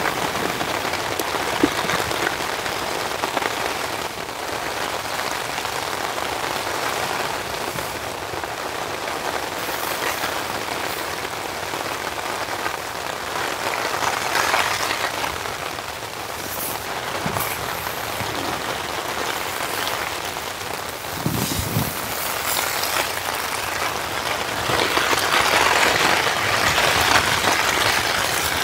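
Steady rain falling, growing a little louder near the end.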